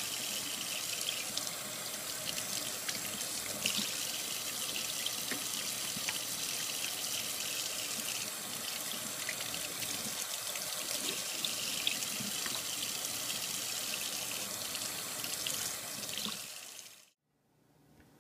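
Kitchen faucet running steadily into a stainless steel sink, the water splashing over a bunch of asparagus being rinsed by hand. The sound cuts off abruptly near the end.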